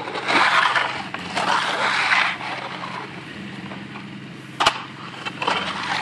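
Metal bull float scraping across freshly poured wet concrete: two long swishing passes in the first two seconds and another near the end. A steady low engine hum runs underneath, and a single sharp click comes a little past halfway.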